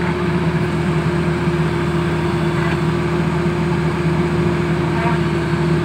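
Engine of a horizontal directional drilling rig running steadily, a constant even hum.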